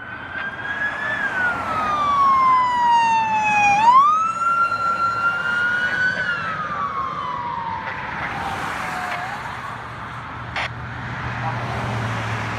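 Wildland fire patrol truck's siren wailing, sliding slowly up and down in pitch, loudest about four seconds in, then fading out as the truck moves away. Traffic noise and a low engine rumble remain.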